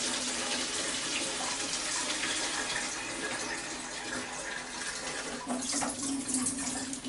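Kitchen tap running water into a plastic milk jug, filling it to measure out half a litre. The flow becomes uneven and a little quieter about five seconds in.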